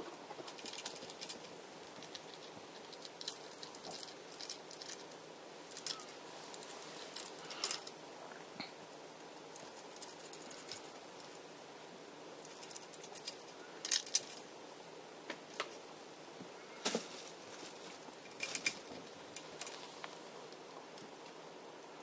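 Kittens batting at a plastic ball-track cat toy: irregular light clicks and short plastic rattles, with a few louder knocks and rattles in the second half, over a faint steady hiss.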